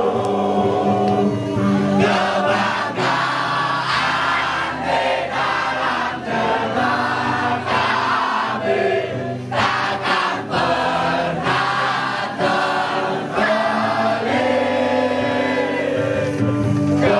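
A boy singing a supporters' song into a handheld microphone, with a group of voices singing along in chorus.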